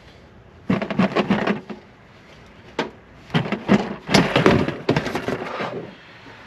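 Plastic interior liftgate trim panel of a GMC Terrain being pulled off, its push-in retaining clips popping loose with clusters of sharp snaps and knocks, about a second in and again from about three to six seconds.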